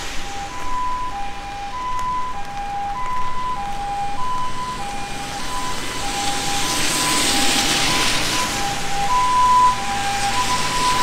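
Japanese ambulance siren, its two-tone hi-lo "pee-poh" switching between a higher and a lower note about every half second and growing louder toward the end. Under it, tyres hiss on a wet road, swelling as a vehicle passes about seven seconds in.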